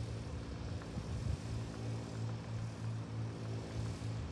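A low mechanical drone that throbs about two to three times a second over a steady hum.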